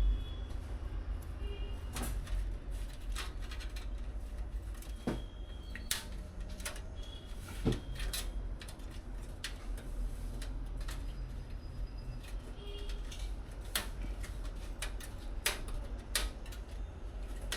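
Scattered light clicks and taps at irregular intervals over a steady low hum, with a few brief high chirps.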